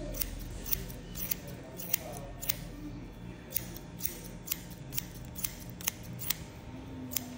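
Barber's hair-cutting shears snipping hair held on a comb (scissor-over-comb), a crisp snip about twice a second in a steady rhythm.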